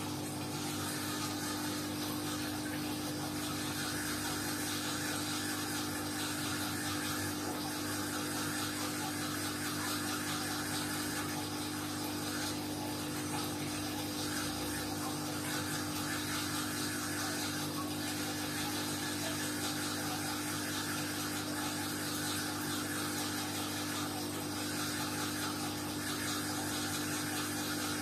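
Submersible aquarium pump running with a steady electrical hum and an even whir of moving water.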